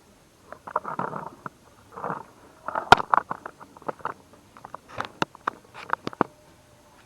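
Metal tools and engine parts being handled: irregular clicks, clinks and short rattles, with the sharpest knock about three seconds in and a quick run of clicks around five to six seconds.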